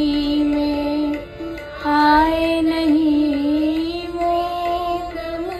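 A singer holding long, slightly wavering notes in a Hindi devotional bhajan, over musical accompaniment; the first held note breaks off a little after a second in and a second long note follows.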